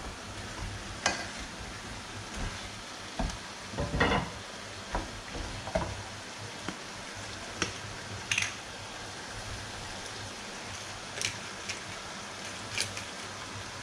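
Wooden spoon stirring chopped vegetables in a large pot, knocking irregularly against the pot, over a steady sizzle of the food cooking. A few sharp clicks come in the second half.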